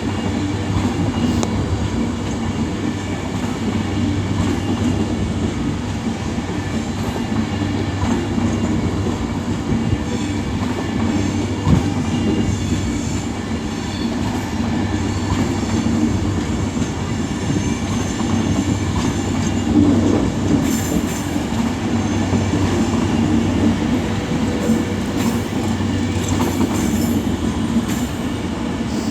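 Class 390 Pendolino electric train at the platform, a steady hum of its traction and onboard equipment, with a few brief knocks and wheel clacks.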